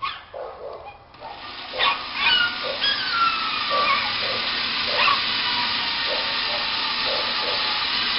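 Electric drill running steadily while drilling a pilot hole, starting about a second in, with a brief falling whine as it bites. A dog whimpers and yips in the background.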